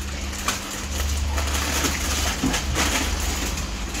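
Plastic fish-transport bag crinkling and water sloshing as the bag is handled at the surface of an aquarium to release a fish, with a few sharp crackles, over a steady low hum.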